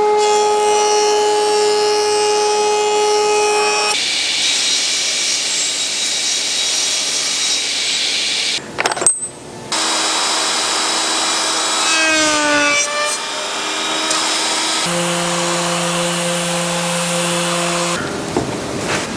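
Woodworking power tools one after another: a jointer running and cutting a board, then a router spinning up with a rising whine about twelve seconds in and running steadily. Near the end it changes to the rubbing of sanding on the wood.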